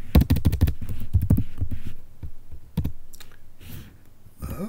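Typing on a computer keyboard: a quick run of keystrokes, then a few scattered key presses as a command is finished and entered.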